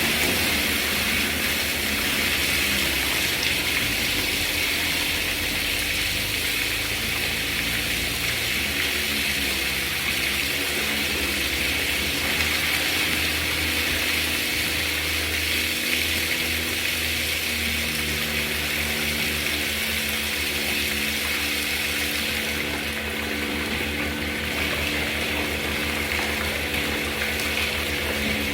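Dairy milking-plant machinery running steadily, with liquid rushing through the plant and a low mechanical hum.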